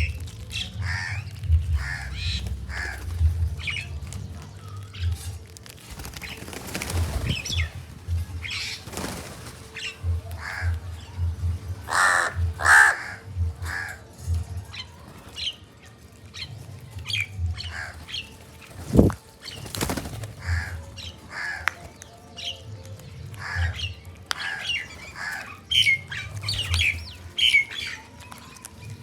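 Birds calling over and over in short, irregular chirps and calls, with a low rumble and a faint steady hum underneath.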